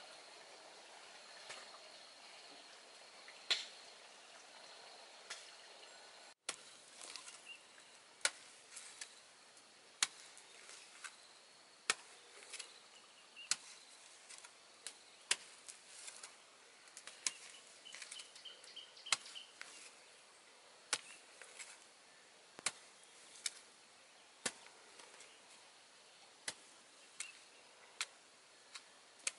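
A hand hoe chopping into hard, stony soil, giving sharp strikes about once a second. The strikes start about six seconds in; before that there are only a couple of isolated knocks over a faint steady high buzz.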